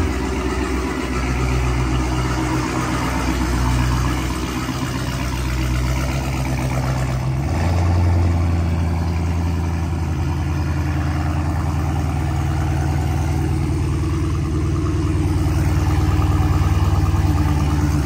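Supercharged Hellcat Hemi V8 idling loudly through an exhaust with its catalytic converters removed, a steady deep idle. About seven and a half seconds in, the engine note shifts and grows fuller.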